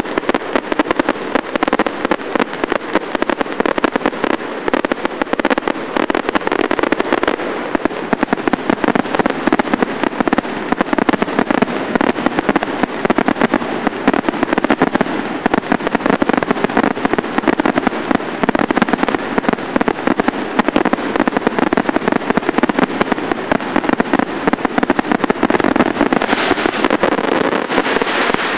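Fireworks display going off in a dense, unbroken barrage: many rapid bangs and crackles running together, growing a little brighter near the end.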